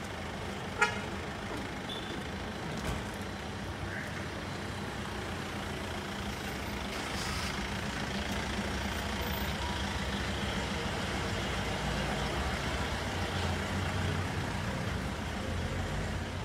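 Street traffic noise: vehicle engines running steadily, with a sharp click about a second in.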